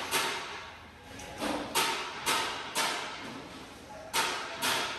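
A string of sharp metallic bangs at uneven intervals, some in quick pairs, each with a short ring: steel parts being struck or slammed in a sheet-metal workshop.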